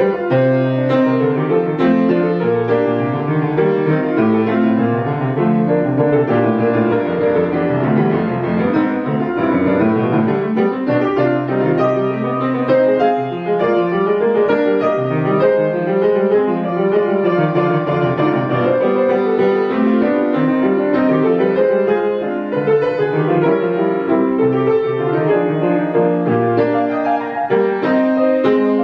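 Grand piano played solo: classical music in a continuous, busy run of notes across the low and middle registers.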